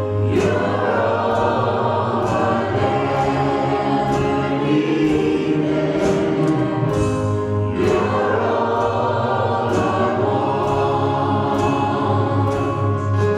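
Church worship singing: a slow gospel song led by a man and women singing into microphones, with long held chords.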